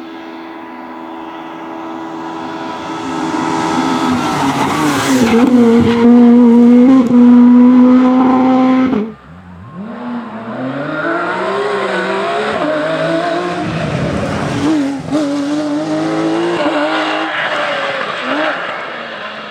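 Rally car engine at high revs, growing louder and peaking from about five to nine seconds in. The sound then cuts off abruptly as the driver lifts off the throttle, and the engine revs up and down through quick gear changes as the car drives on.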